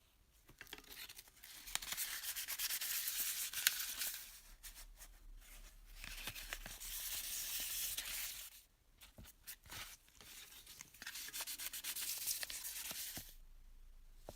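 Sanding a small model bus body by hand: three spells of scratchy rubbing strokes, each a few seconds long, with short pauses between.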